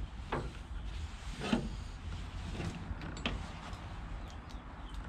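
Hand tools clinking and rattling a few separate times while being handled, as when sorting through a tool bag for a socket, over a steady low rumble.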